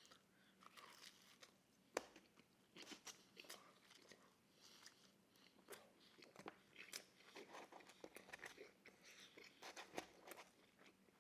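Quiet, close-up chewing of thin-crust pizza: soft crunches and wet mouth clicks, with one sharper crunch about two seconds in.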